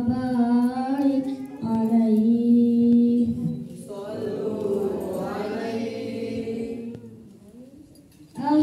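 Boys' voices singing a devotional song in unison, unaccompanied, on long held notes. About four seconds in a fuller chorus of voices joins and then fades away near the end.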